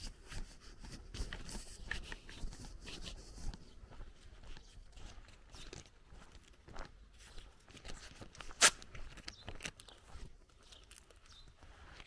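Footsteps crunching on a gravel and dirt lane at a walking pace, with one sharp, louder click a little past the middle.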